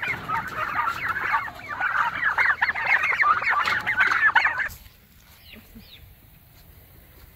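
Flock of young white turkeys giving many overlapping short calls as they are caught and moved. The calling stops suddenly about five seconds in, leaving only a few faint calls.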